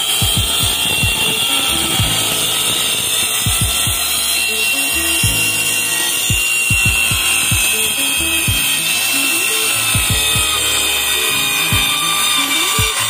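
Background music with a steady beat, laid over a compact electric circular saw cutting a plywood sheet, its motor whining steadily.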